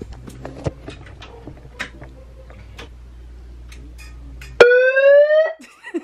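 Supreme megaphone's built-in siren blasting a very loud electronic wail that sweeps upward in pitch, starting suddenly about four and a half seconds in, lasting about a second and cutting off. Before it there are only faint handling clicks.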